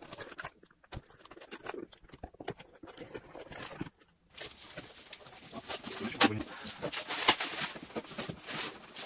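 Packing tape on a cardboard shipping box being slit with a blade, with scattered scrapes and clicks. About four seconds in comes a denser crackling rustle of cardboard flaps and plastic bubble wrap being handled, with a few sharp crinkles.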